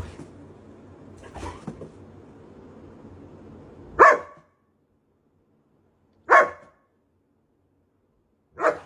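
German Shepherd barking at its own reflection in a mirror: three single loud barks, a little over two seconds apart.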